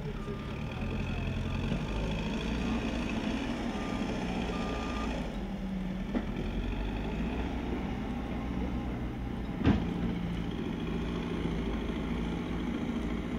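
Diesel engines of a backhoe loader and a dump truck running at a work site, with a reversing alarm beeping several times during the first five seconds. A sharp knock, the loudest sound here, comes about ten seconds in.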